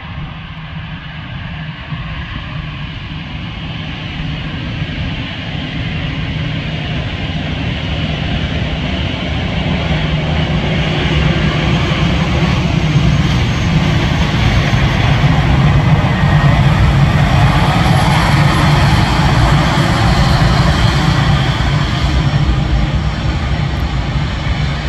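Airbus A320's twin jet engines running as the airliner rolls along the runway: a deep rumble with a hiss on top. It builds steadily and is loudest about two-thirds of the way through.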